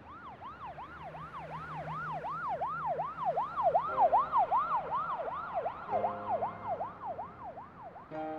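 Emergency vehicle siren in a fast yelp, sweeping up and down about three times a second. It grows louder toward the middle and fades again.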